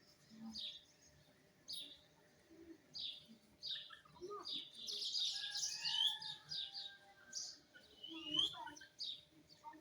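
Pet parrot calling in a series of short, high chirps, with a busier, louder run of calls and whistled notes about halfway through.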